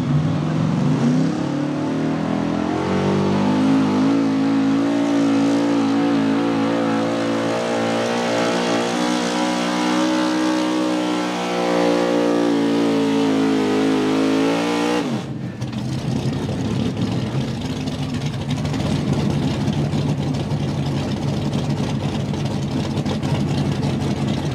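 Outlaw 4x4 pulling truck's engine revving up and held at high rpm under full throttle as it drags the sled. About fifteen seconds in it cuts off suddenly and falls back to a lower, rough-running idle.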